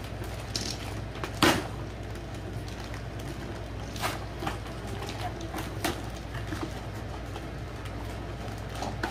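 Plastic packaging crinkling and a cardboard toy box being handled as toys are unwrapped. A few sharp crackles stand out, the loudest about a second and a half in, over a steady low hum.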